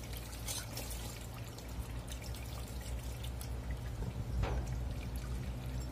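Faint wet crackling and small clicks of a knife working through a large tilapia being cleaned, with one sharper click about four and a half seconds in, over a steady low hum.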